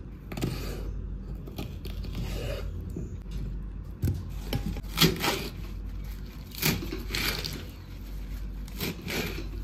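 Kitchen knife cutting English cucumber and then crisp lettuce leaves on a wooden chopping board: irregular crisp cuts with scraping and knocks of the blade against the board.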